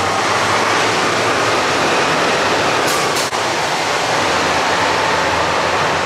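Bus and car traffic driving through a narrow road tunnel: steady, loud engine and tyre noise. A couple of short high hisses come about three seconds in.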